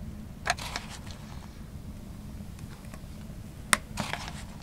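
Wooden spoon stirring cocoa in a metal pot: a few sharp clicks and knocks of wood against metal, about half a second in and again near the end, over a steady low hum.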